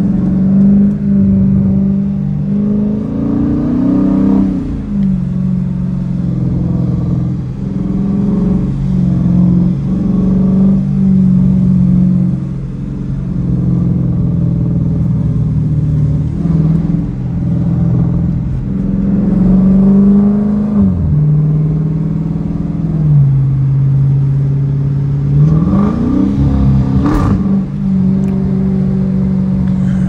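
Dodge Challenger R/T's 5.7-litre HEMI V8 heard from inside the cabin while driving: a steady low engine drone whose pitch climbs and falls back several times under throttle, most plainly about four seconds in, a little before the twenty-second mark and again near the end. One short sharp noise sounds near the end.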